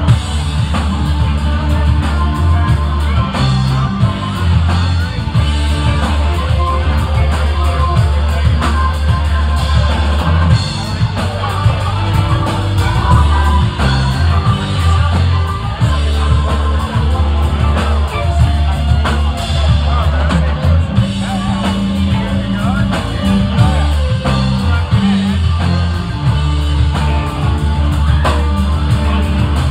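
Live rock band playing loudly: electric guitars over a drum kit, with a heavy, booming low end.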